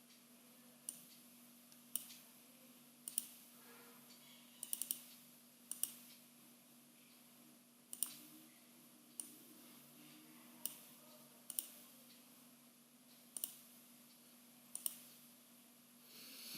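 Computer mouse buttons clicking faintly, about a dozen single clicks spaced roughly a second apart, with a quick pair or triple about five seconds in, over a faint steady electrical hum.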